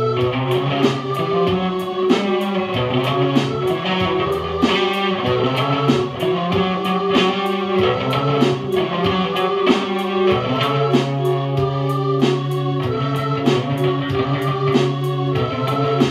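Stratocaster-style electric guitar through a small practice amp, played together with a Casio electronic keyboard: band music with a steady beat and held keyboard notes.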